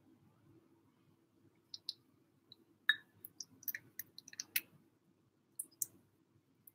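Light, scattered clicks and taps of a plastic spoon in a ceramic bowl as a kitten eats wet food from it, beginning a couple of seconds in and bunched in the middle, with small wet mouth sounds of the kitten eating.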